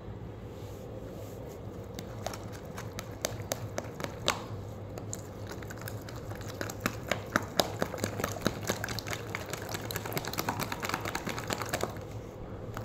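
Slime squished and kneaded by gloved fingers, making sticky clicks and small pops of trapped air. They begin about two seconds in and come thick and fast in the second half.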